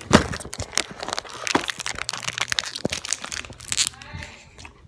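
Crinkly plastic candy packet rustling and crackling as it is handled and opened.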